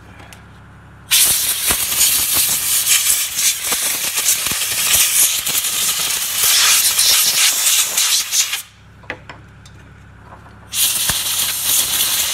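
Compressed-air blow gun hissing as it blows sawdust off a chainsaw's plastic recoil starter cover: one long blast of about seven seconds, a short pause with a few small clicks, then a second blast near the end.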